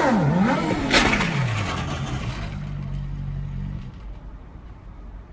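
Sport motorcycle engine revving up and down twice as the bike wheelies, with a sharp crash about a second in as the bike hits the pavement. The engine keeps running low for a few seconds after the crash, then stops.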